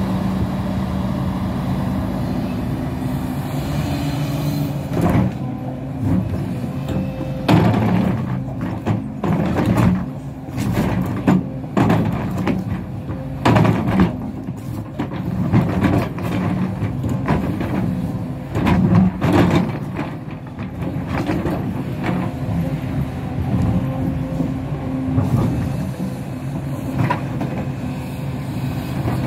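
Hidromek HMK 230LC excavator's diesel engine running steadily under work. Through the middle there are repeated clanks and scraping as the bucket digs into stony soil and knocks against rocks.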